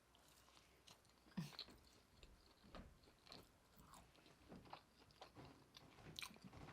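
A person chewing food close to the microphone: soft, irregular mouth clicks and smacks, the loudest about a second and a half in.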